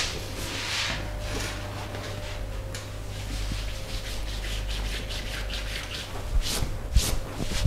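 Hands rubbing and kneading during a massage: a run of soft brushing strokes, with a few sharper taps near the end.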